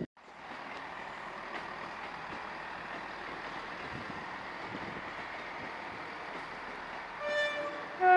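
An approaching train sounds its two-tone horn near the end: a higher note, then a louder, lower note, over steady background noise.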